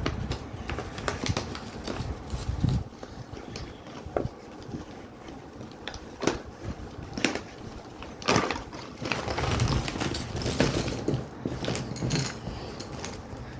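Packaging being handled and opened: rustling with scattered sharp clicks and crackles, busier in the second half.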